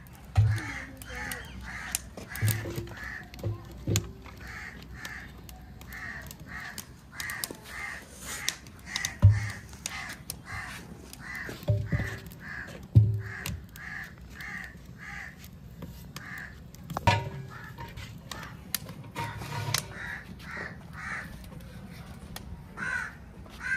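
Crows cawing over and over, about two or three caws a second, with a few heavy knocks and thumps as the big metal cooking pots are handled on the fire bricks.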